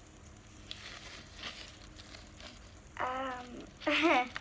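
Faint rustling and crinkling of plastic fidget-toy packaging being handled and opened. Near the end come two short vocal sounds.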